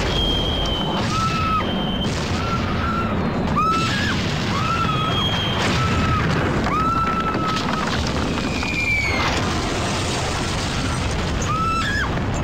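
Explosions, a continuous rumbling din with several sharp blasts. Short high tones that bend in pitch recur over it throughout.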